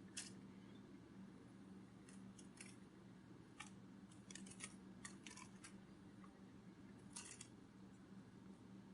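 Faint, irregular light clicks, some in quick little clusters, over a low steady hum: a butterfly wing sound effect.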